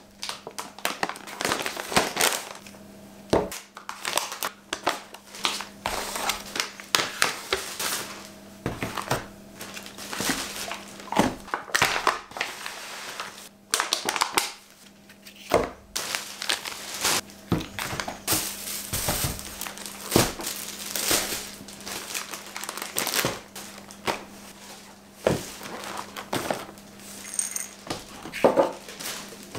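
Plastic shopping bags and food packaging rustling and crinkling as groceries are unpacked onto a wooden table, with a few knocks as items are set down.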